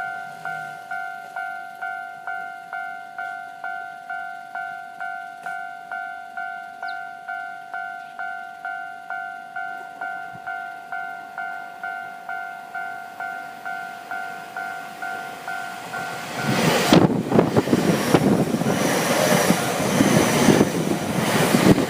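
Japanese level-crossing warning bell ringing steadily, a two-tone clang about two and a half times a second. About three-quarters of the way in, a Keio Inokashira Line commuter train passes through the crossing, its loud rumble and wheel noise drowning out the bell.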